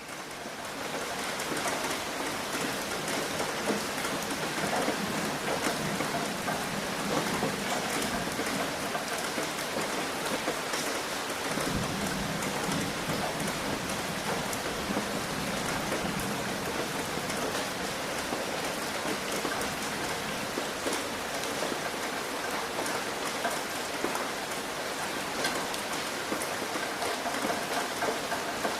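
Steady rain hitting a roof: a dense, even patter of drops with many sharp individual taps, fading in over the first second or two.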